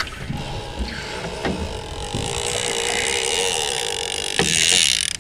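Overhead fishing reel's spool spinning freely as the sinker and live bait drop toward the bottom, a steady whir with hiss that grows louder about four seconds in.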